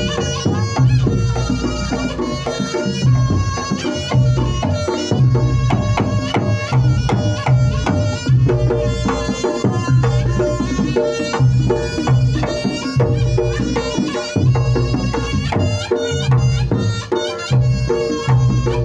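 Reog Ponorogo gamelan music: kendang drums beating a driving rhythm under a melody of pitched instruments, playing without a break.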